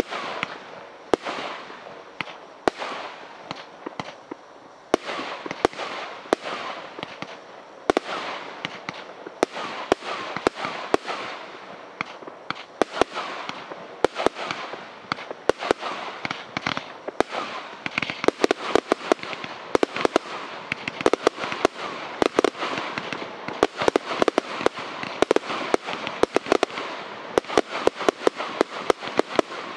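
Brothers Pyrotechnics Hercules Limited Edition 1.3G firework cake firing shot after shot, with loud reports and bursts. The shots come about a second apart at first, then several a second from about halfway through.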